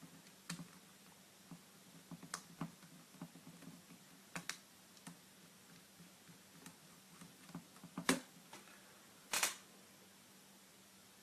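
Scattered small clicks and taps of a mini screwdriver and screws on a netbook's plastic screen lid as the last two screws of the frame are driven in, with two louder clicks near the end.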